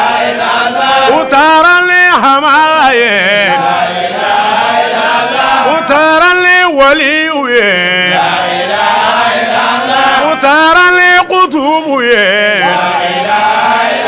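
Men chanting an Islamic devotional song together, a lead voice drawing out long wavering notes while the others sing along.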